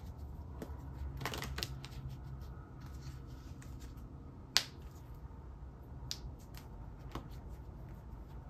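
Tarot cards being shuffled and drawn from the deck, heard as soft scattered card flicks with one sharp snap about halfway through.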